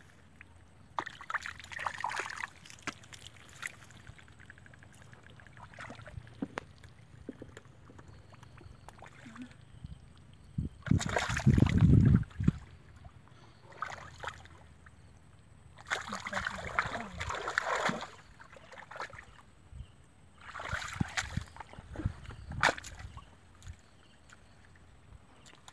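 Shallow muddy water sloshing and splashing in several separate bursts as a person wades and gropes through the mud with their hands, with small wet clicks between; the loudest, deepest slosh comes about halfway through.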